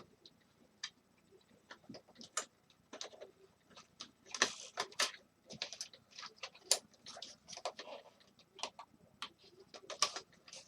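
Irregular light clicks, taps and small clatters of a space heater's parts being handled and worked loose during disassembly.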